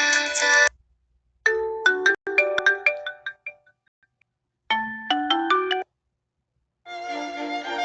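Huawei Y6 (2018) phone ringtones played one after another: several short electronic melodies, each stopping abruptly after a second or two, with brief silences between.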